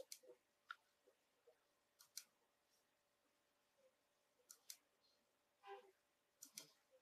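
Faint clicks of a computer mouse, coming in quick pairs about every two seconds as the pages are turned.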